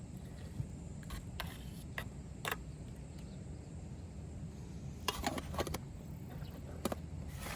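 Steady low rumble with scattered light clicks and clatters, and a quick run of them about five seconds in.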